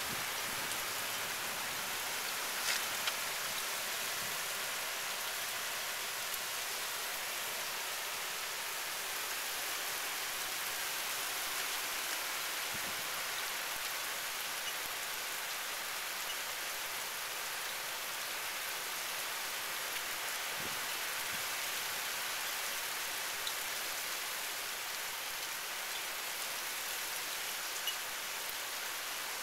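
Heavy rain falling steadily, an even hiss of drops on surfaces, with a few sharper drip clicks: two near the start and one near the end.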